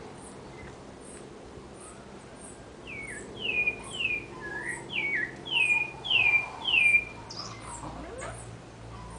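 Sabiá thrush singing a phrase of about seven clear whistled notes, each sliding downward. The phrase starts about three seconds in and ends about seven seconds in.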